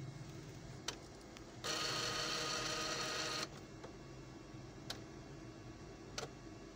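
Epson T60 inkjet printer's mechanism working: a sharp click about a second in, then a motor whirring for nearly two seconds as the print-head carriage travels across, then two more single clicks.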